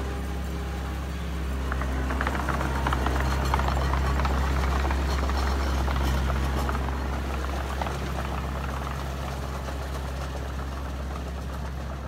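Diesel engine of a Komatsu D20A small crawler bulldozer running steadily under load as it pushes soil. Dense clattering and crackling rides over it, loudest from about two to eight seconds in.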